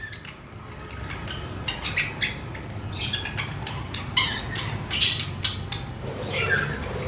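Budgerigars chirping in short, scattered calls, with a few sharp ticks among them.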